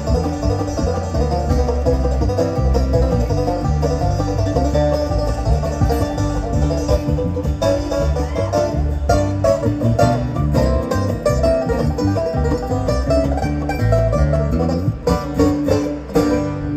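Bluegrass band playing live, led by a five-string banjo picked in a steady stream of notes over a low bass line that steps from note to note. A few sharp, accented stops break the flow near the end.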